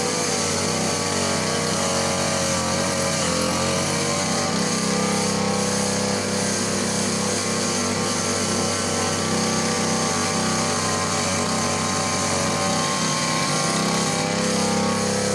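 Petrol grass cutter engine running steadily at a constant level, its pitch wavering slightly a few seconds in.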